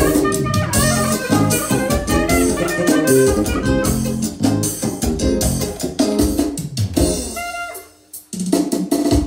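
Live manele band playing an instrumental passage: electronic arranger keyboard with a drum-kit backing and electric guitar. The music drops out briefly near the end, then comes back in.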